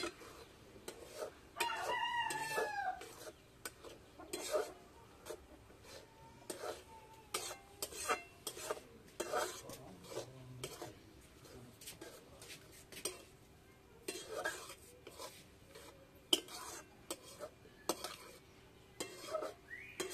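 Metal spatula scraping and knocking against a metal wok as egg curry is stirred, in short irregular strokes. A rooster crows once about two seconds in.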